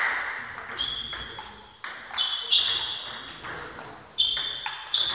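Table tennis rally: the ball clicking off the bats and bouncing on the table, sharp ticks with a short ring each, coming at uneven gaps of about half a second.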